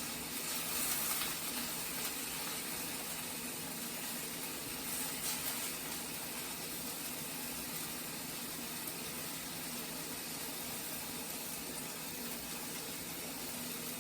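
Steady sizzling hiss of stovetop cooking: chicken breast browning in a skillet while a pot of quinoa steams off its water. The hiss swells slightly about a second in and again around five seconds in.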